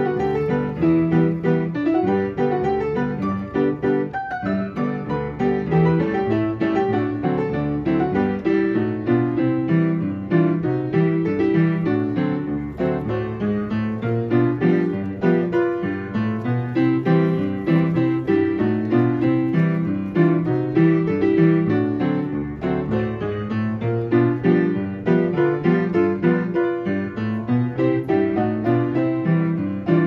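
Player piano playing a march and two-step from a perforated paper roll.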